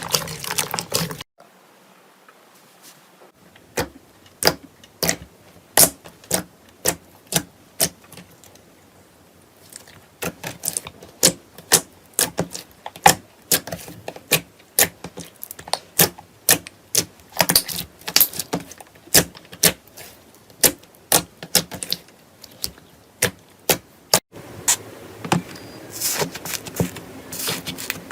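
Slime being squeezed and pressed by hand, giving a run of sharp clicks and pops, roughly two a second. Denser crackling comes in briefly at the start and again near the end.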